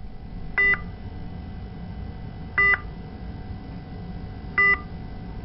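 An electronic beep sounding three times, once about every two seconds, each one short and made of several pitches at once. A steady low hum runs underneath.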